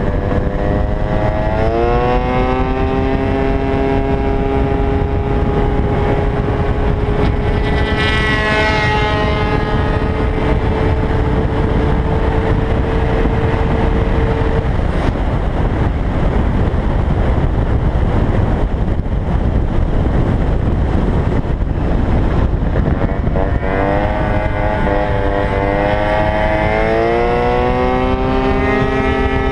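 Gilera Runner FX scooter's 172 cc two-stroke engine at full throttle on a track, its pitch climbing as the rider accelerates out of a corner and then holding steady, with loud wind rushing over the microphone. A higher engine note falls sharply in pitch about eight seconds in. Near the end the engine note climbs again on the next acceleration.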